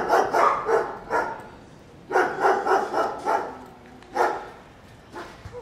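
Small white dog barking: quick runs of several high, sharp yaps, then two single barks near the end.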